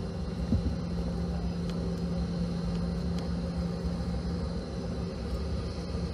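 Cabin noise of a Boeing 717 taxiing: a steady hum from its rear-mounted Rolls-Royce BR715 turbofans at low thrust over a low rumble, with one light knock about half a second in.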